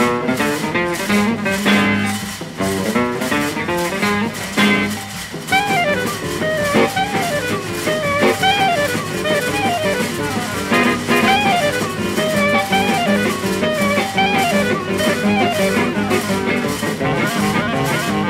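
Background music: guitar over a steady drum-kit beat, with a bending melodic lead line coming in about five seconds in.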